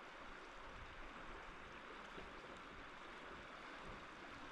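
Faint, steady rush of river water flowing past, with no other sound.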